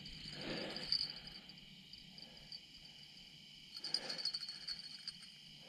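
Crickets chirping steadily in the night, with faint handling noise and light clicking from a baitcasting reel being worked, once near the start and again about four seconds in.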